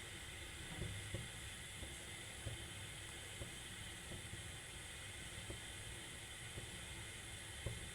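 Pot of hot kadha settling just after the gas is turned off: a faint steady hiss with soft low pops about once a second.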